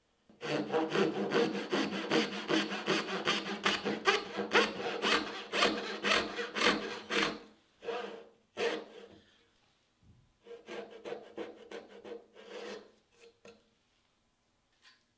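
Brass-backed dovetail saw cutting into the end grain of a walnut board by hand. There is a long run of quick, even strokes, then a few single strokes, a short pause, and a second shorter run that trails off into light strokes near the end.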